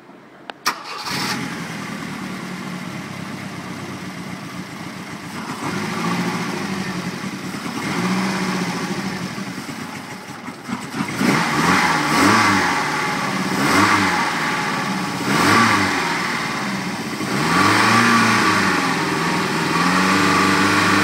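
Volvo Penta AQ151 four-cylinder petrol boat engine, heard close up in its engine bay. It starts just after a click about a second in, idles, then is revved up and back down several times, more often in the second half.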